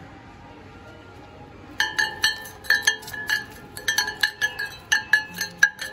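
Jingle-bell Christmas ornament shaken by hand, jingling in quick repeated shakes that start about two seconds in.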